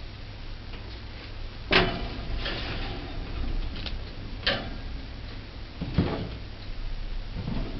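Oven door being opened and shut while a cake pan is slid onto the oven rack: three sharp metal knocks and clanks, a few seconds apart.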